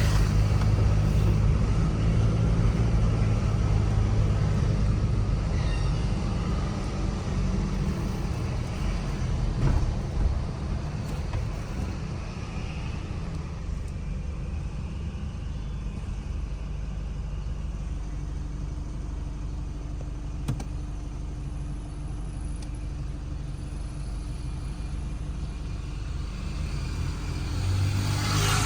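Chevrolet S10 pickup driving, a steady engine and road rumble. It is louder for about the first ten seconds, then settles lower.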